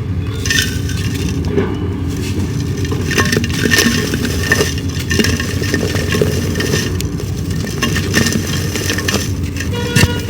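Dried clay being crumbled: a steady stream of crisp cracks and crunches as pieces break apart, with a few sharper snaps, over a steady low rumble.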